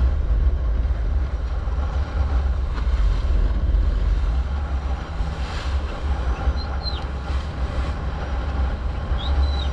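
Motorboat running at speed over open sea: a steady, buffeting low rumble of wind on the microphone mixed with engine drone and the rush of the churning wake. Two short high chirps come through faintly, about seven seconds in and near the end.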